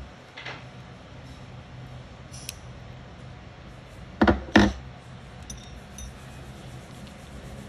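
Two dull knocks in quick succession about four seconds in, over a faint steady hum, with a few light clicks earlier.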